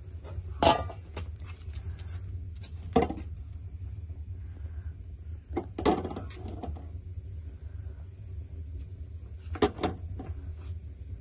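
Dishes and cookware knocking and clattering: a handful of sharp knocks spread out with pauses between them, over a steady low hum.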